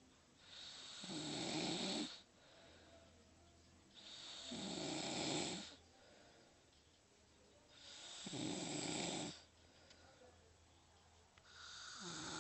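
Slow, regular snoring: four long snores about three and a half seconds apart, the last still going as the clip ends.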